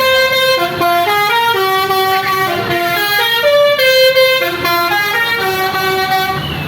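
A bus's Basuri melodic telolet air horn playing a tune, one sustained note at a time stepping up and down, about three notes a second. The tune stops near the end.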